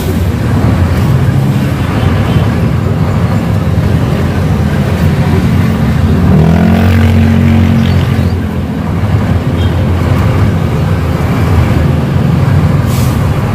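Ten-wheeler truck's diesel engine running under way, heard from inside the cab. About six seconds in, the engine note rises and holds for a couple of seconds.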